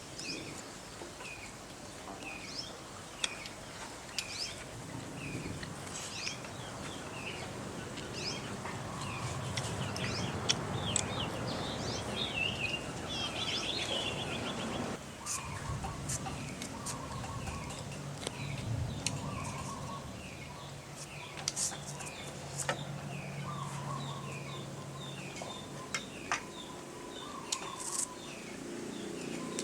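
Birds chirping repeatedly, a short high call about twice a second, with scattered small clicks.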